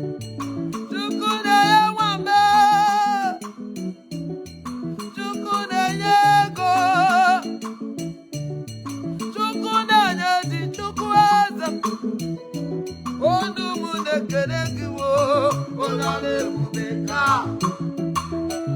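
Worship music: a voice singing in phrases with vibrato over a band with plucked guitar and a steady bass line.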